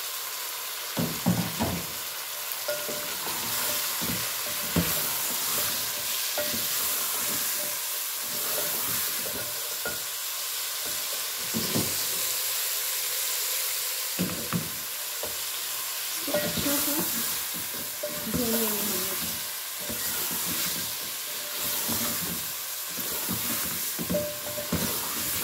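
Chicken pieces and chopped tomatoes sizzling in oil in a metal pot, with a steady hiss, while a wooden spatula stirs them, scraping and knocking against the pot many times.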